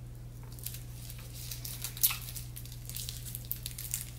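Wrapper of a dark chocolate truffle being crinkled and torn open, a run of sharp irregular crackles over a low steady hum.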